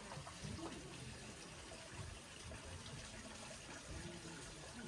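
Water running steadily in a small garden stream and cascade.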